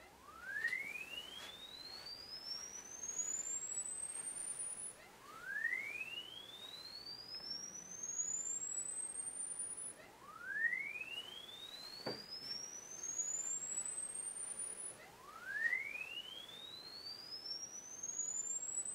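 Pure sine test tone sweeping upward from low to about 10 kHz in about five seconds, then starting over, four sweeps in all: a laptop sound card's 50 Hz to 10 kHz frequency sweep passed through the LM386 amplifier circuit in bypass mode, so unamplified.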